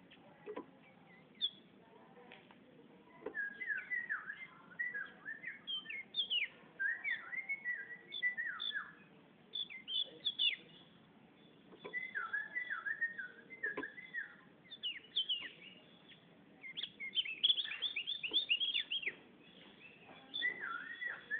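Javan grey-throated white-eye (opior jawa) singing: quick runs of short chirping and whistled notes, in several phrases a few seconds long with short pauses between them.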